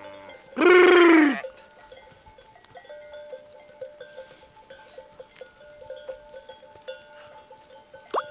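A sheep bleats once, loud and close, about a second in. Then the flock's bells clink and ring in a loose walking rhythm as the sheep move along, with a sharp clank near the end.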